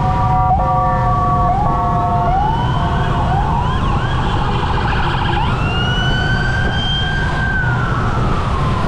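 Police escort vehicles' sirens: first a stepped two-tone pattern switching back and forth, then several overlapping wails rising and falling, with one long wail climbing and dropping away near the end. A steady low traffic rumble runs underneath.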